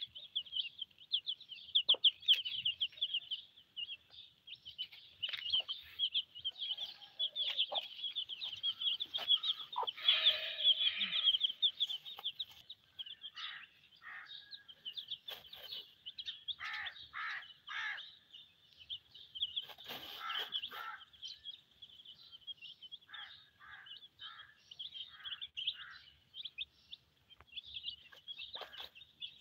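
A brood of Silkie chicks peeping constantly in quick high chirps, with a hen giving short, low clucks among them through the middle and later part.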